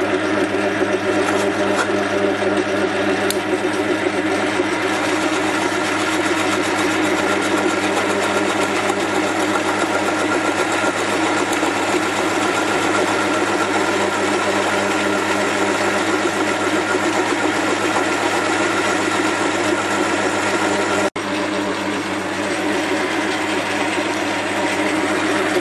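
Metal lathe running under power with a steady mechanical whine while a carbide insert turns down cast brass round stock on medium feed. The sound breaks off for an instant about four seconds before the end, then carries on.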